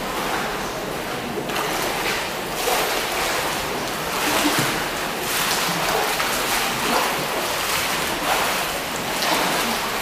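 Swimmer doing front crawl in pool water: repeated splashes of the arms striking the water over a steady wash of churning water.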